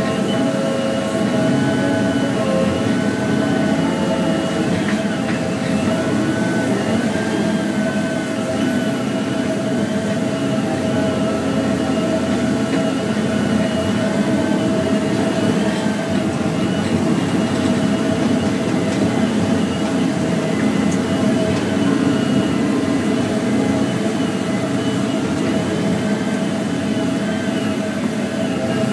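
Diesel engine and hydraulics of a Volvo 3329FM feller buncher fitted with a Satco 630 felling head, running under load as the boom works. It is a steady drone with a constant high whine, and higher tones above it that waver slightly.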